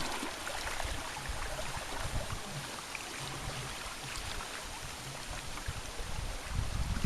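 Water rushing and lapping along the hulls of a small trimaran sailing canoe under way: a steady, even wash with small scattered splashes.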